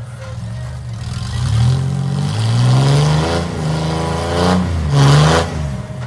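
Rock crawler buggy's engine revving in two rising surges while it claws up a steep rock ledge, the second and loudest about five seconds in, with a tyre spinning on the rock and throwing dirt.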